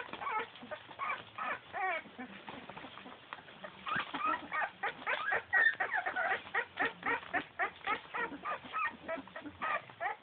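A litter of young puppies making many short, high-pitched squeaks and whines that overlap one another, sparse at first and coming thick and fast from about four seconds in.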